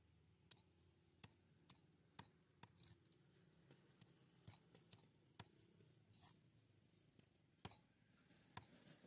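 A large curved knife scraping scales off a big carp on a wooden chopping block: irregular sharp clicks and taps, about a dozen, with the two loudest near the end.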